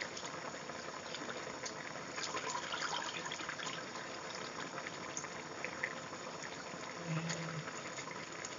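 Pot of chicken giblet soup at a rolling boil: steady bubbling with many small pops.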